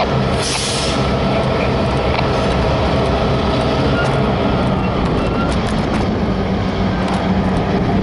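Steady low engine rumble, with a brief hiss about half a second in.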